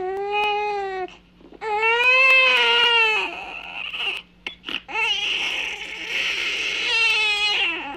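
Loud wailing cries: three long drawn-out wails with shorter sobs between them, the middle one rising and then falling in pitch.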